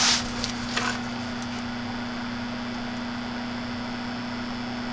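A 12-volt PC fan in a homemade fume extractor running steadily, an even whir of air with a constant low hum. A short hiss sounds right at the start.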